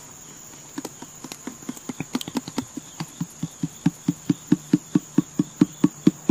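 Partly empty plastic ketchup bottle shaken upside down, the ketchup knocking inside it in quick regular strokes, about four or five a second, getting louder toward the end. Crickets chirr steadily behind.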